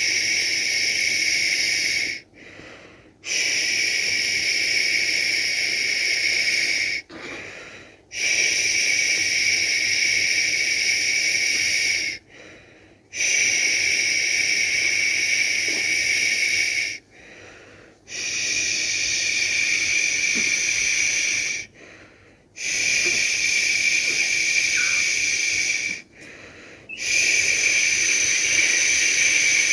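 A person making long, steady 'shhh' shushing sounds to soothe a baby, each held about four seconds, with a short pause for breath between them, about seven in all.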